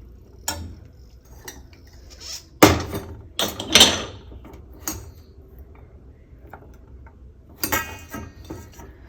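Kitchen dishes and utensils being handled: a string of separate clinks and knocks, the loudest about two and a half seconds in, with a short clattering run just after.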